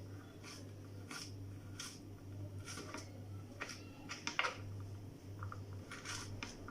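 A blade cutting dried figs into small pieces: irregular sharp cuts about once a second, a few in quick succession, over a steady low hum.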